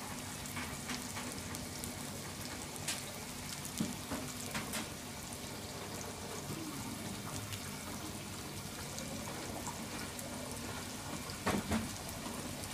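Thick curry sauce simmering in a pan: a steady hiss with a few soft pops of bursting bubbles.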